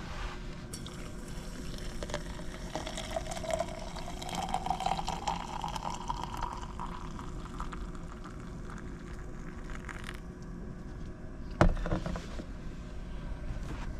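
Hot water poured from a camp stove pot into a stainless insulated French press mug of coffee grounds, the pitch of the pour rising steadily as the mug fills. A sharp knock comes near the end.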